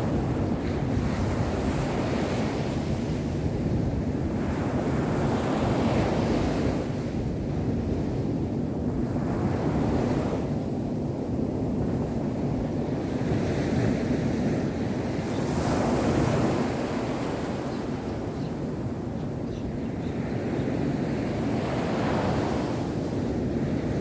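Small surf breaking and washing up a sandy beach: a steady rushing wash that swells and eases every few seconds as each wave comes in.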